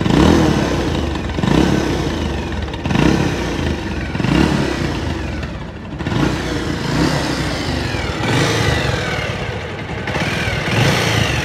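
Motorcycle engine running and being revved in repeated blips, about one every second and a half, while its engine oil level is low.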